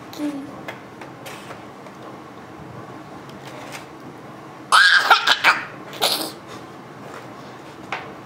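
A toddler giggling in a few quick bursts about halfway through. The rest is a quiet room with a few faint clicks.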